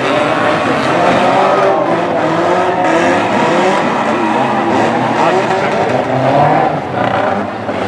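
Several banger racing cars racing together, their engines revving at once in many wavering, overlapping pitches over the noise of tyres on the track.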